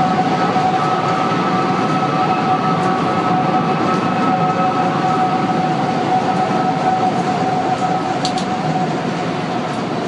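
An eerie two-toned whistle set up by strong wind around the unfinished One World Trade Center: two steady tones, one above the other, held over a rushing haze of wind noise. It is heard only on very windy days and is thought to come from a wind-tunnel effect through the site's open windows and construction.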